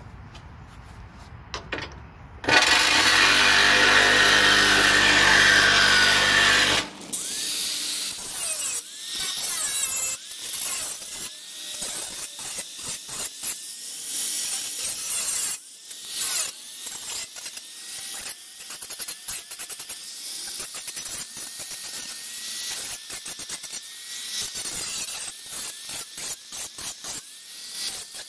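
Small handheld electric grinder starting up and running at full speed for about four seconds, then grinding metal in many short passes, its pitch dropping under load and climbing back each time it eases off.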